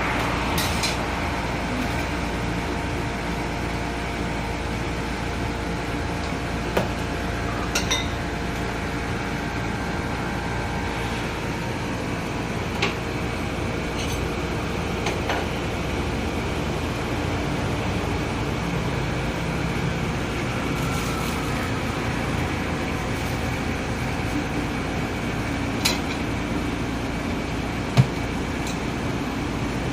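Steady eatery background hum with a scattering of short, sharp clinks of dishes and utensils, the sharpest two near the end.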